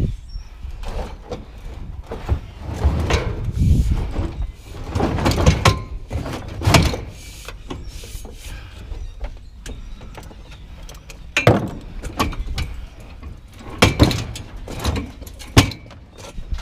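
Scrap metal being handled and moved about: irregular clanks, knocks and scraping of metal pieces, with several sharp loud bangs.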